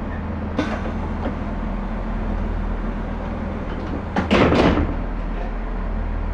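Steady low drone of a class 142 Pacer's underfloor diesel engine heard from inside the railcar. A short, loud clatter of knocks comes about four seconds in.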